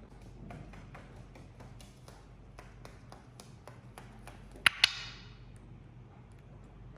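Light, irregular tapping and clicking, then two loud sharp clicks in quick succession about two-thirds of the way in, the second ringing briefly.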